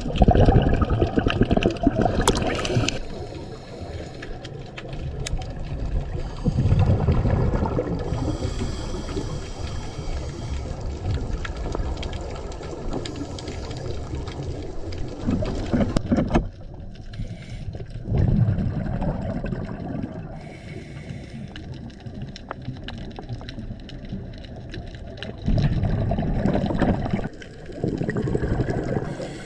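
Underwater sound of a scuba diver's breathing: several bursts of exhaled bubbles rushing from the regulator, with a steady underwater hiss between them.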